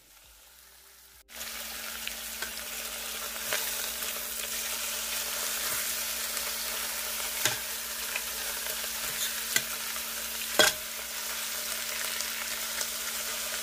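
Beef chuck steaks searing in hot olive oil in an electric multi-cooker pot: a steady sizzle that starts suddenly about a second in. A few sharp clicks of metal tongs against the pot come through as the pieces are turned, the loudest a little before the end.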